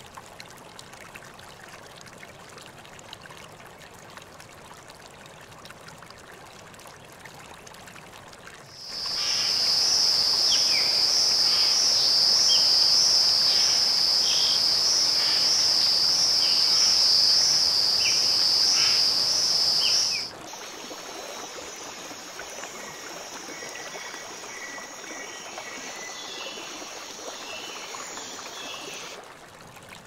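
Tropical wildlife ambience. A faint steady background for the first several seconds, then a loud, high-pitched pulsing insect chorus with short chirping calls over it for about eleven seconds, cutting off suddenly. A quieter mix of high trilling and faint calls follows.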